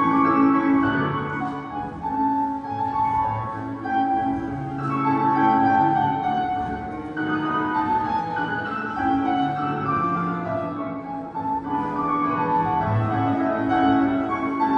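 Classical music playing as accompaniment for a ballet exercise: a flowing melody over sustained chords and a bass line.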